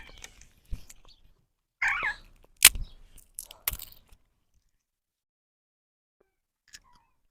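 A parrot gives one short, wavering squawk, followed by two sharp clicks about a second apart.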